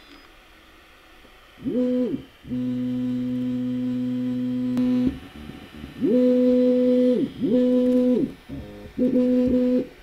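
Bambu Lab A1 3D printer's stepper motors sounding tones during its pre-print calibration. There are several separate runs of tone: some slide up in pitch, hold, and slide back down, and one long steady tone runs from about two and a half seconds in to about five seconds in.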